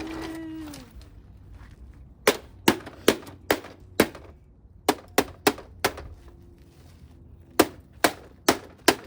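Hammer blows on a Trifo robot vacuum's plastic body: about a dozen sharp strikes, two to three a second, in three quick runs starting about two seconds in.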